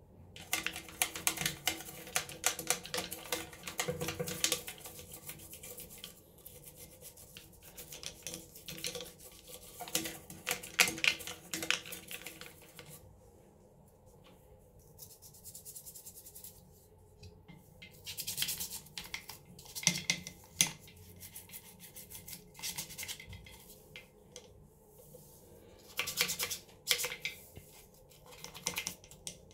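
Toothbrush bristles scrubbing a chrome sink drain and its pop-up stopper: rapid, scratchy back-and-forth strokes in several spells, with a quieter stretch in the middle.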